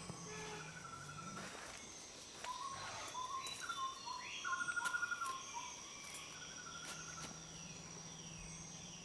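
Rainforest ambience: a steady high-pitched insect drone with birds calling over it, a string of short whistled notes and a rapid trill loudest around the middle. A faint low hum lies underneath at the start and again in the second half.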